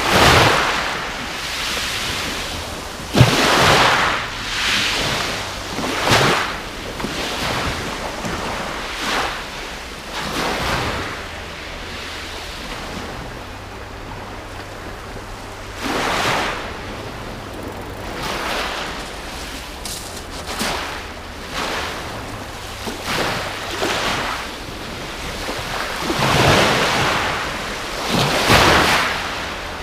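Sea waves washing onto the beach in repeated swells every second or two, with some wind buffeting the microphone. A single sharp click about three seconds in.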